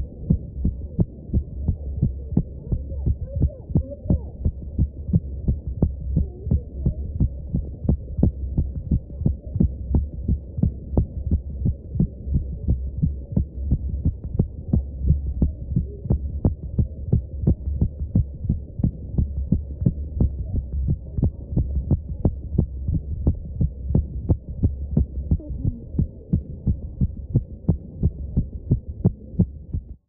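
A woman's heartbeat heard through a stethoscope: fast, regular pounding beats over a steady low hum.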